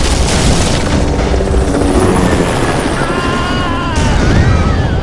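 Film battle sound effects: explosions with a heavy, continuous low rumble and crashing debris, joined about three seconds in by women screaming.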